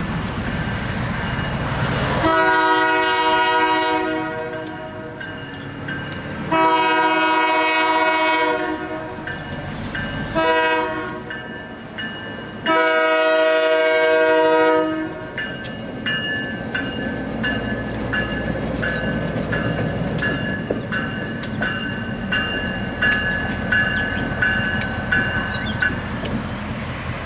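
End-cab diesel switcher blowing its multi-chime horn in the grade-crossing pattern, long, long, short, long, over the steady rumble of its diesel engine. After the last blast it rolls past with a fast repeated metallic ringing and clicking.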